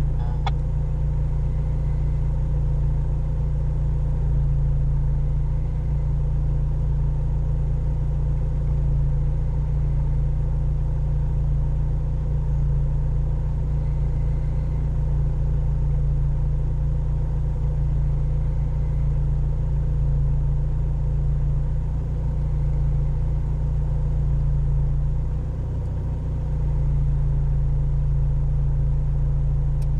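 4x4 vehicle's engine idling steadily, a low rumble heard from inside the cabin, dipping briefly about 25 seconds in.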